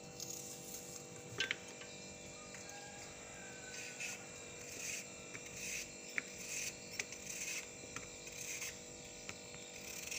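A kitchen knife slicing through an onion in short, irregular cuts, with sharp clicks as the blade or slices meet the metal pot. A faint steady hum sits underneath.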